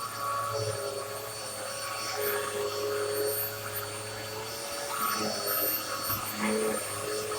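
Black and Decker BDXURV309 bagless upright vacuum running over a rug: a steady motor hum with a whine whose pitch wavers slightly.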